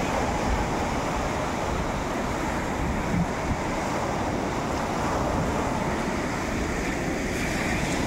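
Black Sea surf: small waves breaking and washing up a pebble beach in a steady wash.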